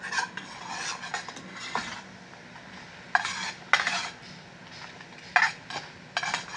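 A utensil scraping and clinking against a small frying pan in several short bursts, stirring the panela, honey and ginger syrup as it is brought back to the boil.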